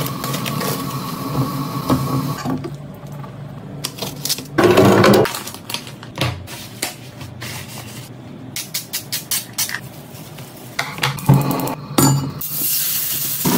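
Kitchen food-prep handling sounds: a series of clinks and knocks of dishes and cookware with many short taps, and a louder noisy stretch about five seconds in.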